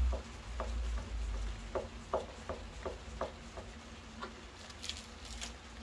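Thin plastic wrapping crinkling as hands handle it: a string of small irregular ticks, then a few sharper, brighter crackles near the end.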